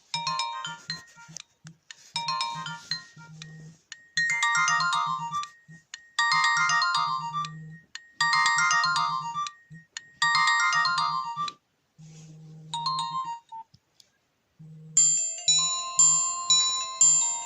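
Nokia 1280 mobile phone ringtones. A short electronic melody repeats its phrase about every two seconds, then stops. After a brief pause, about three-quarters of the way through, a different ringtone starts with bright, chime-like notes.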